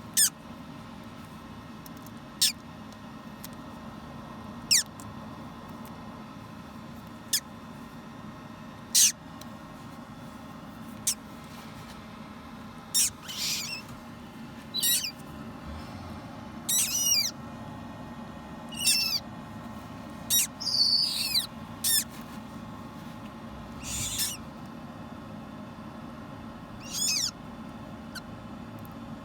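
Parrot chick hatching and peeping: thin, high calls every second or two. The early calls are short and sharp; from about twelve seconds in they grow longer, wavering and more frequent. A steady low hum runs underneath.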